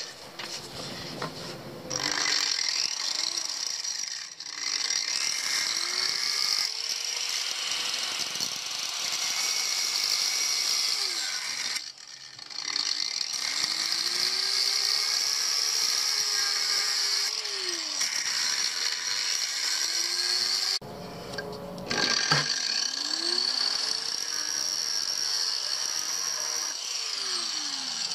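A power tool motor running steadily with a high-pitched whine, dropping out briefly twice.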